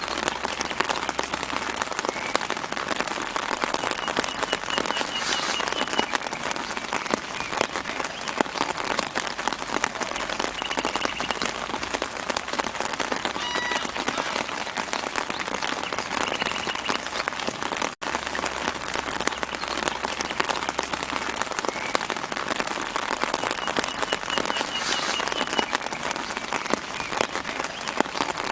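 Light steady rain pattering on leaves, a dense patter of many small drops. Faint short bird trills come through in the background a few times.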